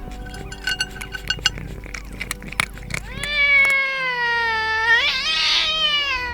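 A kitten giving one long drawn-out meow of about three seconds, starting about three seconds in, slowly falling in pitch with a wavering rise near its end. Before it, scattered light clicks.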